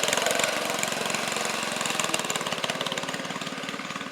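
Small engine of a homemade '72 National tractor-ATV running, a rapid even chatter of firing pulses that slowly grows quieter as it goes.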